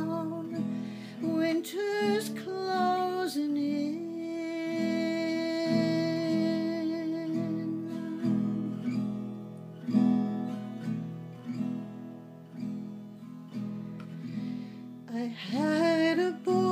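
Acoustic guitar strummed in a steady folk accompaniment, with a woman's voice singing long held notes over it in the first few seconds and again near the end.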